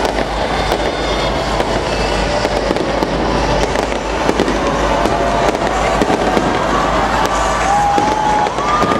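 Fireworks display: dense, continuous crackling from bursting aerial shells, with many sharp bangs and pops throughout.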